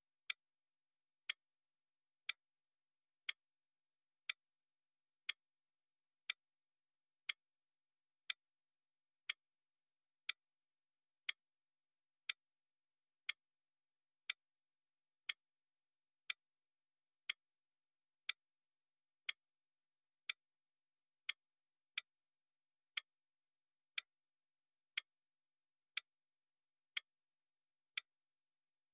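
Clock-style ticking marking a countdown timer's seconds: sharp, evenly spaced ticks once a second with silence in between.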